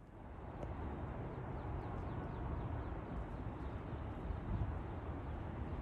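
Distant, steady low rumble of a British Airways Airbus A380 jet airliner flying high overhead, from its four Rolls-Royce Trent 900 engines.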